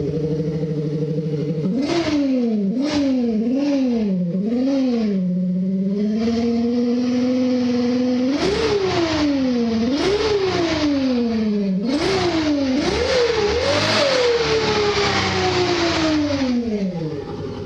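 Yamaha Xeon scooter giving out a big-motorcycle engine sound: a steady idle, then a run of quick revs rising and falling in pitch, a held note, more revs, and near the end a long slow fall in pitch back down to idle.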